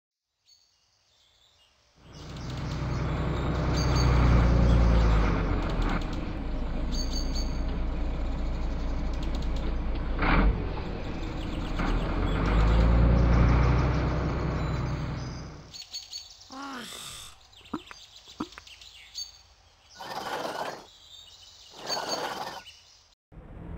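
A bus engine rumbles as it pulls up, runs, and pulls away, swelling twice. Then come a few short bird chirps and two brief bursts of noise near the end.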